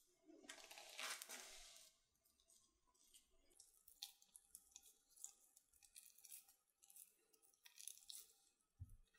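Faint wet squishing and tearing of sticky rice-flour yeast batter as hands stretch and press it around a skewered sausage and cheese, with many small crackly squelches. A soft low thump near the end.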